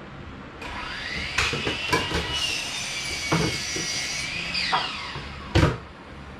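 A small motor whirring, rising in pitch as it spins up, running steadily for about three seconds, then winding down. Several knocks are heard over it, and a loud sharp knock comes about five and a half seconds in.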